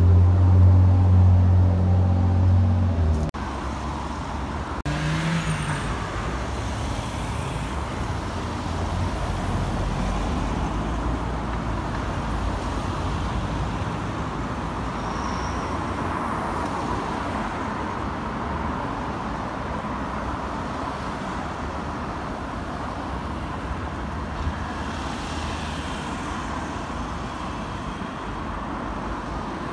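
Diesel engine of an Alexander Dennis Enviro double-decker bus running close by with a strong, steady low drone, which cuts off suddenly about three seconds in. After that comes a steady hum of bus engine and traffic as a single-decker bus edges round a junction.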